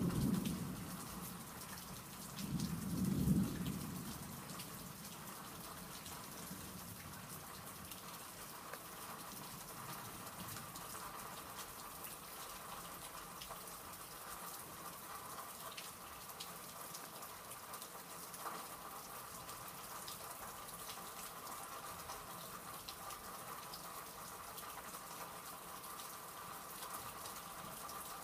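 Steady rain during a severe thunderstorm, with two low rumbles of thunder near the start, the second and louder one about three seconds in.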